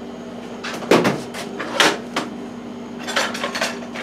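Rummaging: hard objects knocked, shuffled and set down while someone searches for a straight edge. There are a few sharp knocks, the loudest about a second in and just before two seconds, then a quicker run of light clicks and clatter past three seconds, over a steady low hum.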